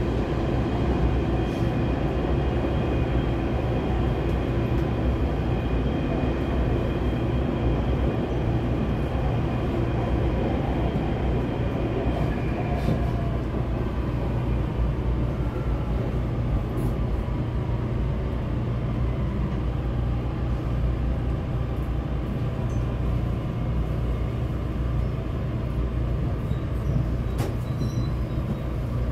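Taipei Metro C321 train heard from inside the car: a steady rumble of steel wheels on rail. Partway through, the motor whine fades and falls in pitch as the train brakes to a stop at the platform.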